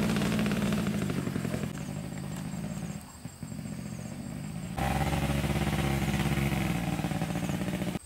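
An engine running at a steady speed. It drops back for a couple of seconds in the middle, comes back louder from about five seconds in, and cuts off abruptly at the end.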